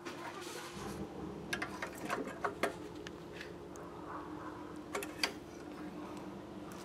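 Scattered light clicks and taps of a small lawnmower engine's oil dipstick being wiped with a rag, pushed into the filler tube and drawn out to check the oil level, over a faint steady hum.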